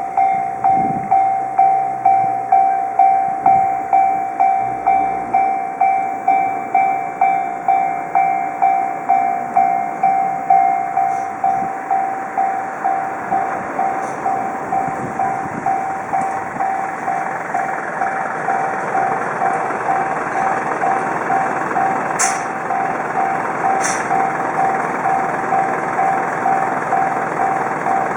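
Japanese railway level-crossing alarm: an electronic bell tone repeating about one and a half times a second, warning that a train is coming. About two-thirds of the way through, the rushing noise of a train passing builds under it, with two sharp clicks near the end.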